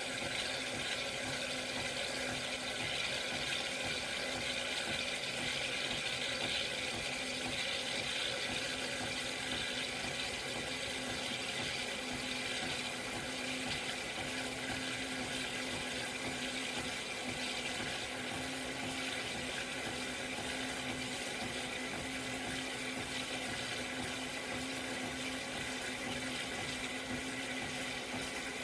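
De'Longhi La Specialista Maestro espresso machine running: a steady hum with an even rush of water or steam hiss, unchanging throughout.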